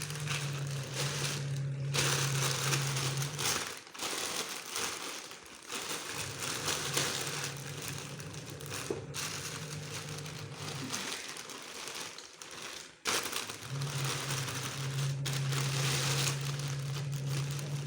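A bag crinkling and rustling continuously as something moves about in it. A steady low hum sounds for a few seconds at a time, three times.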